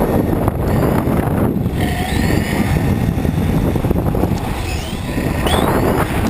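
Onboard sound of a Tamiya TA-05 electric 1/10 RC touring car driving: a steady, loud rumble of tyres and chassis vibration carried into the camera mount. Over it the electric motor's whine rises and falls now and then with the throttle.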